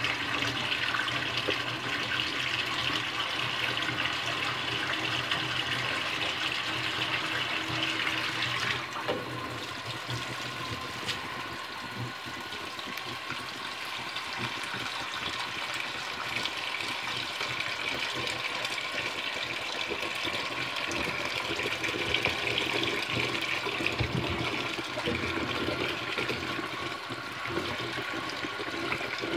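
Kitchen tap running in a steady stream into a plastic colander in a stainless-steel sink while food is rinsed by hand under it; the sound of the stream changes about nine seconds in.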